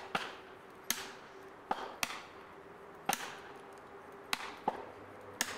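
About eight sharp blows at uneven intervals, each with a brief ringing tail: a hammer driving felling wedges into the back cut of a large pine.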